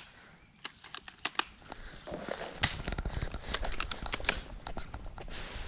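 Footsteps crunching through dry leaves and brush: irregular clicks and crackles that grow denser and louder about two seconds in.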